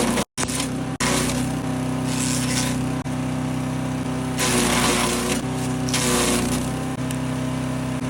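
Wood chipper's gas engine running steadily, with surges of rushing, crunching noise in the middle as branches are fed in and chipped. The sound drops out for an instant near the start.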